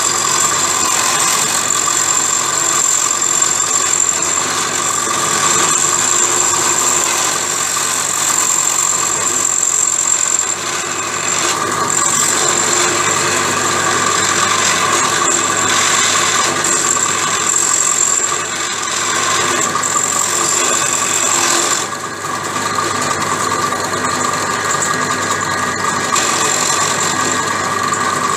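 Pedestal drill press running with a small cutter in its chuck, cutting into the dogs of a gearbox gear: a steady, loud machining whine with a few short dips as the cut eases. The cut back-cuts the dogs, whose rounded leading edges were letting the gear slip out of engagement.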